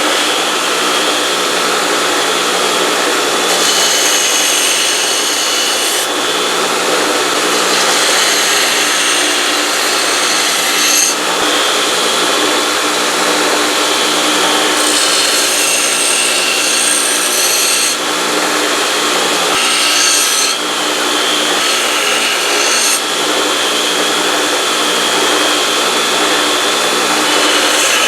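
Power grinder running steadily while grinding the bevel on a knife blade forged from leaf-spring steel, with the pitch and grit of the grinding shifting every few seconds as the blade is pressed on and moved.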